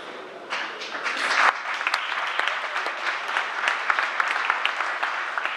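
Audience applauding, a dense patter of clapping that starts about half a second in and eases off near the end.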